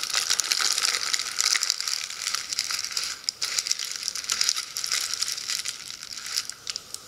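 Japanese paper balloon (kami-fusen) crinkling and crackling as a hand presses it flat, forcing the air out. The dense paper crackle is continuous at first, then thins to a few scattered crackles near the end.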